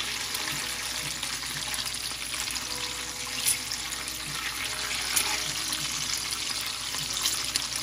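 Bacon strips sizzling in hot fat in a frying pan: a steady loud hiss with a few sharper crackles scattered through it.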